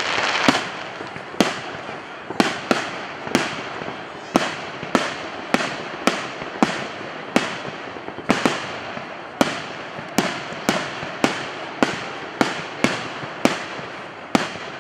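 Fireworks going off in a rapid string of sharp bangs, about two a second, each trailing off in an echo.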